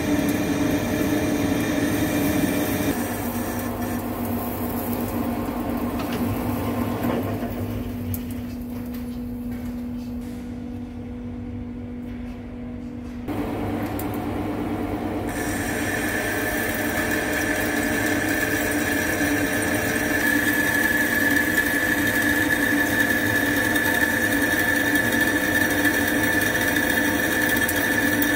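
Centre lathe running while a boring bar cuts the inside of a thick-walled steel tube, a steady machine hum. Partway through the sound drops and thins for a few seconds. Then a steady high whine from the cut comes in and holds.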